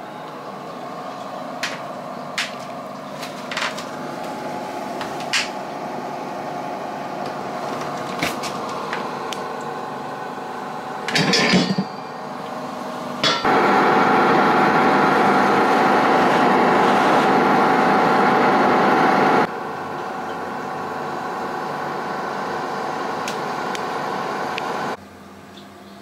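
Liebherr FKv 502 fan-cooled drinks fridge running with a steady hum. Several sharp knocks and a short clatter come from the cabinet being handled. Partway through the hum gets much louder for about six seconds, then eases back and drops away sharply just before the end.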